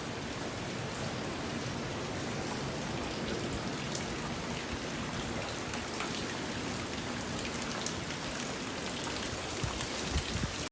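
Steady rain falling, an even hiss with scattered drops ticking, from the stormy weather of a hurricane. A couple of soft knocks near the end.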